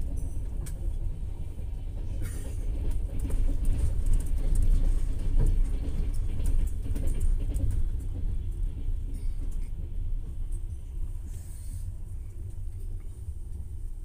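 Passenger train running on the rails, heard from inside the carriage: a deep steady rumble with scattered clicks and knocks, growing louder through the middle and easing off near the end.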